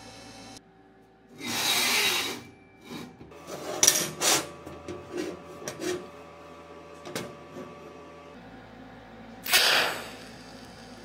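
Steel jig plates being handled and fitted together on a steel bench: a run of sharp metal clicks and knocks, with a longer rushing noise about two seconds in and another near the end. Before and after the handling, the steady hum of a TIG welder runs under it.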